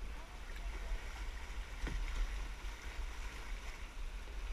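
Fast, shallow river water rushing and rippling around a kayak's hull as it runs a riffle, with one brief sharp sound about two seconds in.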